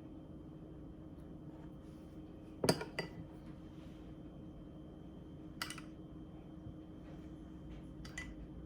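A few light clinks of a metal utensil against a dish, the loudest about two and a half seconds in, over a steady low hum.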